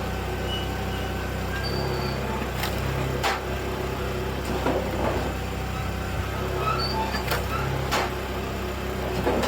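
Engine-driven hydraulic firewood machine running steadily, with sharp knocks and cracks of wood being split or dropping at irregular intervals and a few short squeaks.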